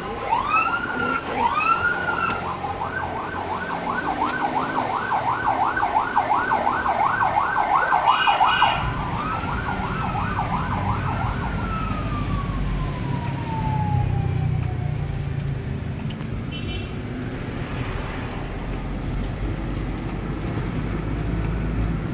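Electronic siren: a couple of slow rising-and-falling wails, then a fast yelp for about six seconds, slowing back to wails and winding down in one long falling tone around two-thirds of the way through. The low rumble of a vehicle driving continues underneath and after.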